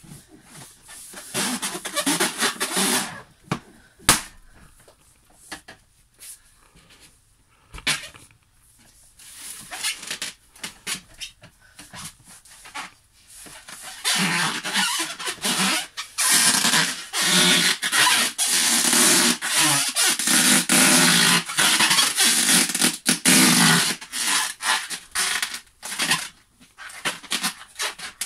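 Latex balloons being squeezed under a person's weight, the rubber squeaking and creaking in long stretches. One sharp pop about four seconds in as a balloon bursts.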